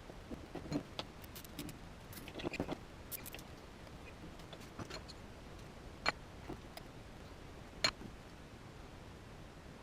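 Small clicks and light rattles of fuel pump parts being handled and fitted together by hand, with two sharper clicks about six and eight seconds in.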